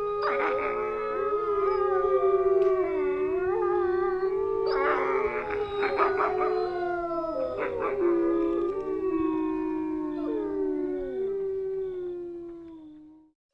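Several long, overlapping animal howls that waver and slide in pitch, fading out near the end.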